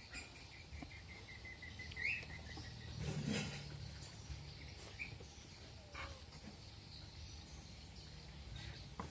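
Quiet outdoor ambience with a small bird giving a rapid run of short high chirps, falling slightly in pitch and ending on an upswept note about two seconds in. A brief low sound follows about a second later.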